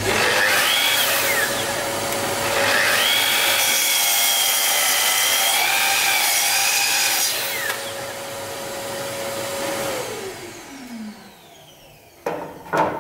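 Sliding compound miter saw starting up and crosscutting an ash board, its whine shifting in pitch as the blade loads in the wood. The motor then winds down with a falling whine about ten seconds in, and a couple of wooden knocks follow near the end as the board is shifted.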